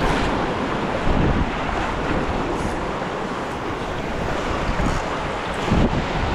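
Ocean surf washing against the shore, a steady rushing noise, with wind buffeting the microphone.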